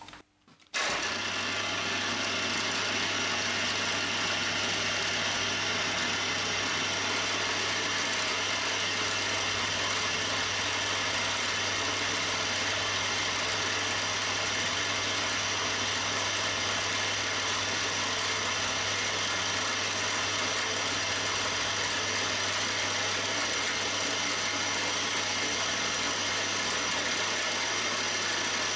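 Milling machine running steadily from about a second in, its spindle turning a 3 mm high-speed-steel ball-nose end mill at 1600 RPM as it cuts a shallow cross-hatch groove about half a millimetre deep; an even machine hum with a low drone underneath.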